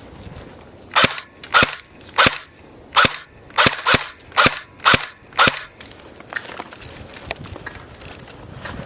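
Airsoft gun firing nine single shots in quick succession, each a sharp pop with a short hiss, spaced roughly half a second apart.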